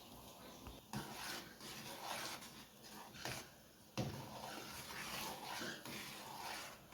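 Faint scraping of a spoon stirring thick canjica (corn pudding) in a pot, in uneven strokes with short pauses, with a sharper knock about a second in and again about four seconds in.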